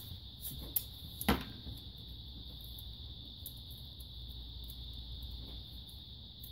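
Small clicks and taps of hands handling a roll of tape and the removed coin-cell BIOS battery on a desk, the sharpest tap about a second in. A steady high-pitched whine and a low hum sit underneath.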